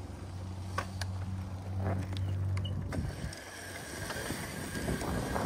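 Razor MX500 electric dirt bike riding along, its electric motor drive giving a steady low hum that drops away about three seconds in, with a few sharp clicks near the start.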